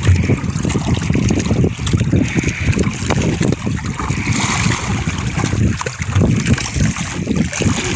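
Gusty wind buffeting the microphone on a small boat at sea, with choppy water sloshing around the hull.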